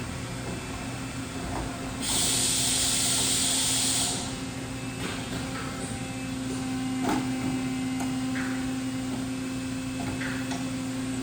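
Industrial machine hum with a steady tone, typical of a powered-up CNC horizontal boring mill. A loud hiss lasts about two seconds, starting about two seconds in, and a few faint clicks come later.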